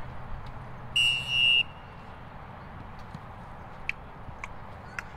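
Referee's whistle, one short shrill blast of about half a second, signalling the kickoff.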